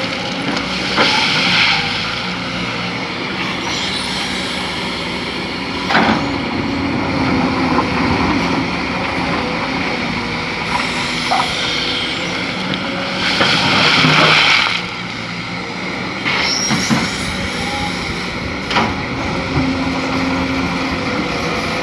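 Heavy diesel excavator running under load, with several sharp clanks and two louder rushing surges, the longer one near the middle.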